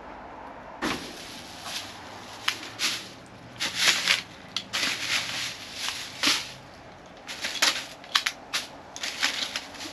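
Clear plastic trash bags crinkling and crackling as a reacher-grabber tool pokes and pulls through them, in irregular sharp snaps.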